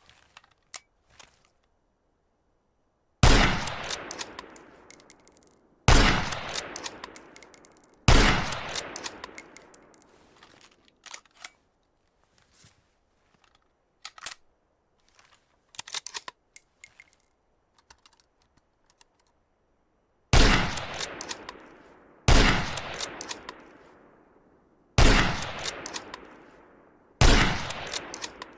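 M40A3 bolt-action sniper rifle in 7.62×51mm NATO firing seven shots, each a sharp report with a long echoing tail that fades over about two seconds. In the gaps between shots come light metallic clicks and clanks of the bolt being worked, with a faint ringing tinkle.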